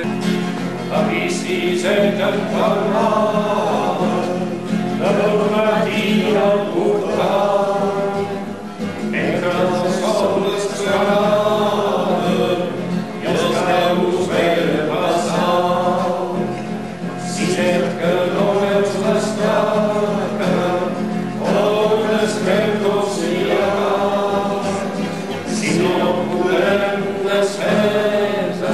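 A man singing a Catalan song to his own acoustic guitar accompaniment, in sung phrases of a few seconds with short breaks between them.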